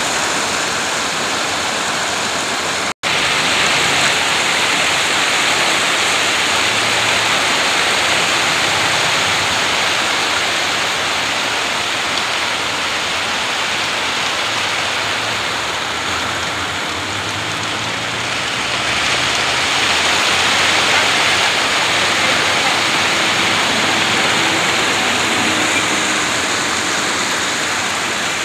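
Wet concrete pouring from a truck-mounted mixer and sliding down long steel chutes, a loud steady rushing noise with a faint engine hum underneath. The sound cuts out for an instant about three seconds in.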